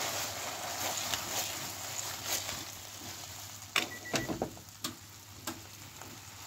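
Chikuzen-ni simmering in a frying pan: a soft sizzling hiss that slowly fades, with a few sharp clicks about four to five seconds in.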